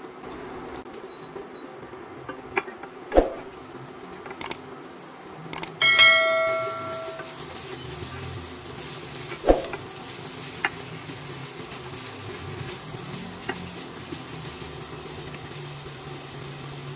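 A silicone spatula stirring shredded chicken and ham as they fry in a stainless steel pot, with a few sharp knocks against the pot. About six seconds in, one loud metallic clang rings like a bell for about a second.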